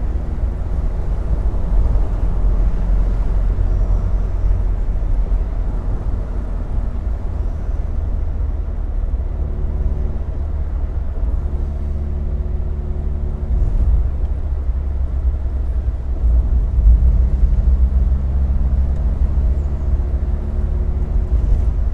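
A car driving along a road: a steady heavy rumble of wind and road noise with the engine note underneath, its tones showing more clearly about halfway through and again near the end.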